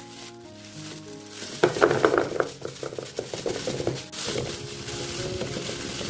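Water pouring into a clear plastic container of small round food items. It is loudest and most splashy for a couple of seconds from about a second and a half in, then goes on as a steadier rush. Soft background music plays throughout.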